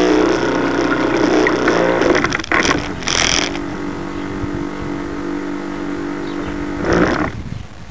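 Radio-controlled model boat's motor running steadily, picked up close by a camera on board the boat. Two brief rushing noises come over it, about three seconds in and again near the end.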